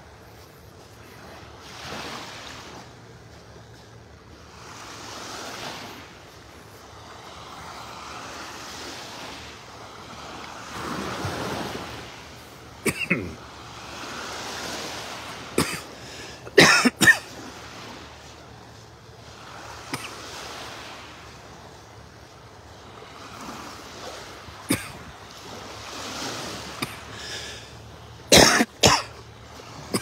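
A man coughing in short fits of two or three coughs, the loudest about two-thirds through and another pair near the end, from a tickle in the back of his throat. Under the coughs, small waves wash onto the sandy shore, swelling and easing every few seconds.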